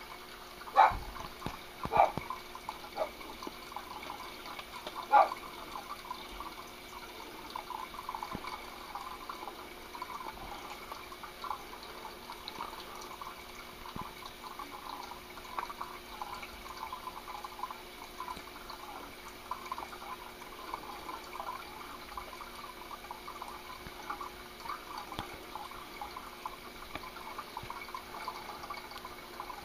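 A dog barking a few times in the first five seconds, over a steady trickle of running water.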